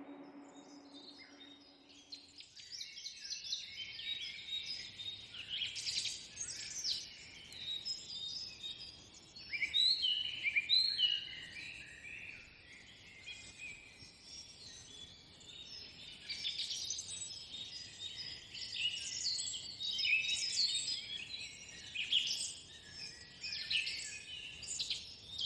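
Many small birds chirping and calling at once, short overlapping chirps over a faint hiss of outdoor ambience, starting a couple of seconds in.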